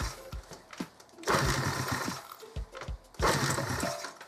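A 139FMB single-cylinder four-stroke moped engine running unevenly at a low idle. It surges three times, with near-dropouts and single thumps between the surges; the idle is set too low, and more idle is still needed.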